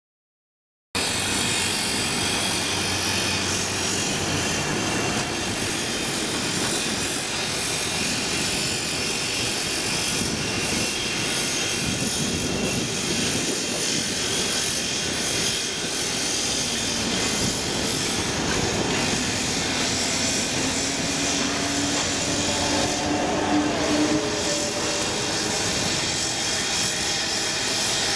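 Steady, loud railway noise of trains running through a large station, starting abruptly about a second in. In the last third a drawn-out engine or motor tone comes through, rising slightly in pitch.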